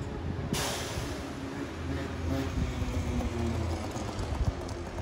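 Setra regional bus's diesel engine running as the bus pulls away and drives off, a steady low rumble with a faint engine drone. A sudden hiss comes in about half a second in and fades.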